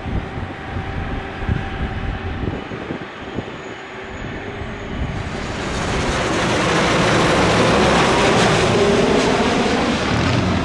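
Wind buffeting the microphone, then a jet airliner's engine noise swelling loud from about halfway through as the plane passes overhead, with a faint gliding pitch in it.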